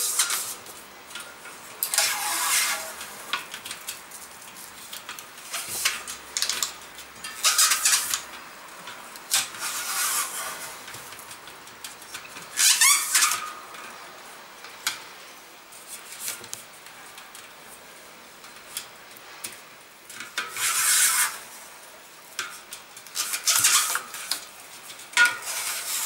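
Tubeless-compatible adhesive rim tape being pulled off its roll under tension and pressed down into a bicycle rim, heard as short bursts of peeling tape noise every couple of seconds, with a quieter stretch in the middle.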